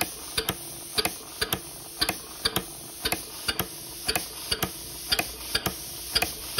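Snap-action poppet valves of a scratch-built model mill steam engine running on compressed air, clicking as the trip gear lets each valve snap shut. The sharp metallic clicks come in pairs, about one pair a second, in a steady rhythm with the engine's turning.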